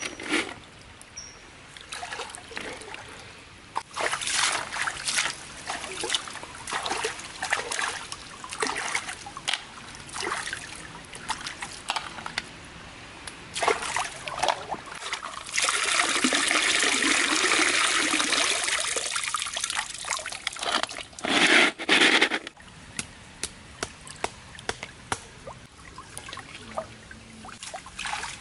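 Stream water splashing and sloshing as river snails are swished about in a metal pan in shallow running water, with irregular splashes throughout. About halfway in comes a steady rush of water lasting about five seconds, then two loud splashes.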